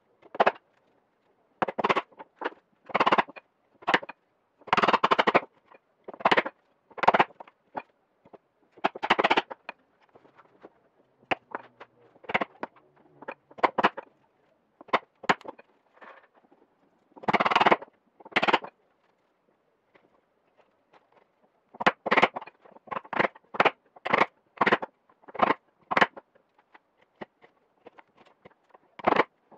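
A chisel driven by repeated sharp blows, chopping a mortise into a thick merbau hardwood slab, in irregular bursts of quick strikes with pauses between. Around the middle the blows give way to quieter scraping and light knocks.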